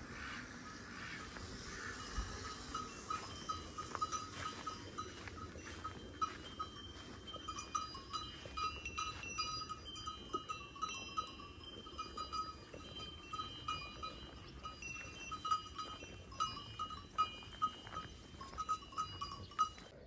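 Small livestock bells on a grazing flock clinking irregularly, several times a second, over faint outdoor background noise.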